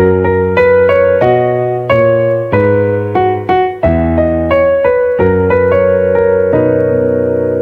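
Piano playing slow chords with no singing, a new chord struck every half second to a second and left to ring until the next.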